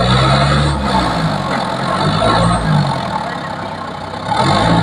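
Engine of a teak log-hauling machine at work, its revs rising and falling under load, with a dip about three seconds in and a pickup near the end.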